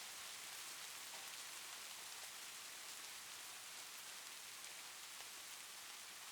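Faint, steady rain ambience: an even hiss of rainfall with scattered light drop ticks.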